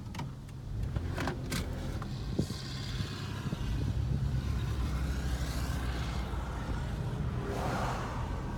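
Road noise inside a moving car's cabin: a steady low engine and tyre drone, with a few sharp clicks in the first second and a half.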